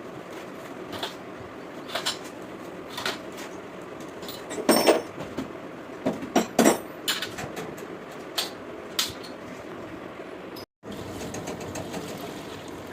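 Irregular knocks and clatters of tools and parts being handled, over steady background noise. The loudest are two short clusters in the middle.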